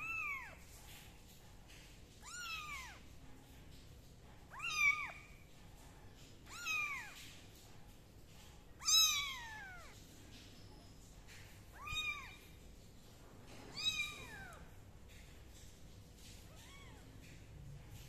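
Tiny kitten meowing over and over: about eight high-pitched mews, roughly one every two seconds, each rising and then falling in pitch. The loudest comes about halfway through and the last is faint.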